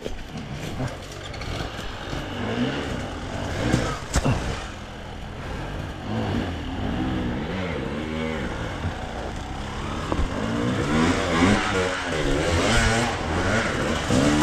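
Enduro motorcycle engine revving up and down again and again as the bike is ridden through rough terrain, with a couple of sharp knocks about four seconds in.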